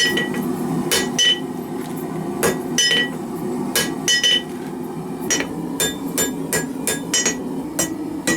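Hand hammer striking hot carbon-steel bearing-race stock on an anvil, each blow with a bright metallic ring. The blows come irregularly at first, then settle into about three a second about five seconds in.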